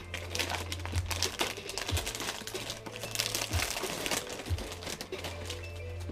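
Plastic cookie packaging crinkling and crackling steadily as the wrapper is handled and opened and a clear plastic tray of cookies is slid out.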